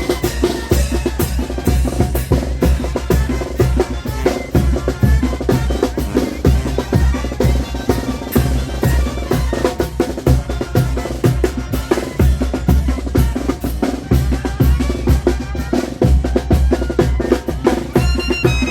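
Chinelo brinco music played by a brass band: bass drum and snare keep a steady, driving beat under a melody of wind instruments.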